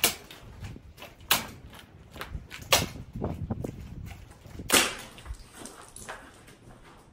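Four loud pistol shots at irregular intervals over about five seconds, each with a short echo.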